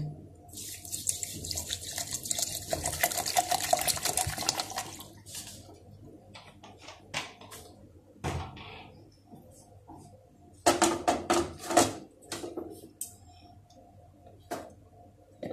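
Plain water poured from a bottle into a plastic blender jar over sugar and salt, a splashing pour lasting about four and a half seconds. After it come scattered light clicks and knocks as falsa berries go into the jar and it is handled.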